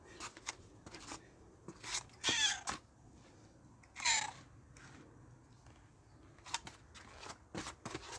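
A domestic cat meows twice, about two seconds apart; each call is short and falls in pitch. Light clicking and rustling run underneath.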